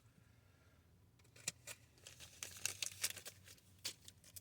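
Faint crinkling and rustling from a pack of baseball cards being handled, beginning about a second in and growing busier in the second half.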